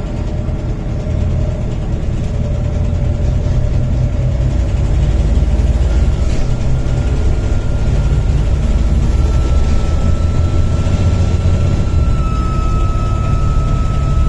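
Volvo B7TL double-decker bus's six-cylinder diesel engine working hard, growing louder over the first few seconds, with a steady high turbocharger whine setting in about six seconds in and holding.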